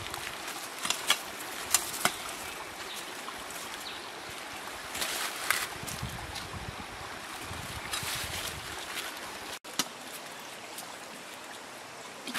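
Shallow rocky stream running steadily, with several sharp snaps and rustles of leafy plant stems being handled and cut with a machete.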